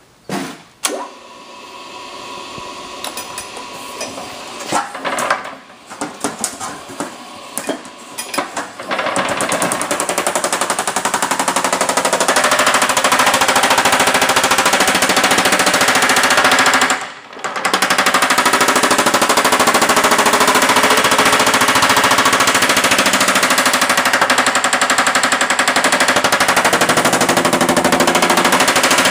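Small Yoder power hammer with thumbnail shrinking dies pounding a sheet-metal panel, shrinking the edge. A few separate blows come first, then a rapid, continuous hammering from about nine seconds in, which stops briefly a little past the middle and resumes.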